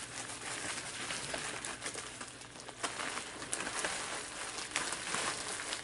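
Plastic bubble wrap crinkling and rustling as it is handled, a light continuous crackle of small ticks.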